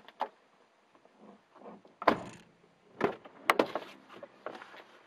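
A few sharp knocks and clatters with a bright metallic click, from things being handled and shifted in the back of a car.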